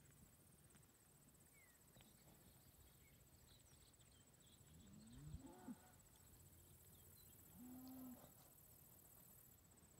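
Cattle mooing faintly: a rising call about five seconds in and a shorter, steadier one about eight seconds in.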